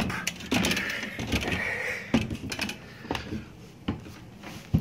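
Someone climbing a wooden attic ladder up through the hatch and stepping onto the attic floorboards: a few irregular knocks and thumps of feet and hands on wood, with rustling between them.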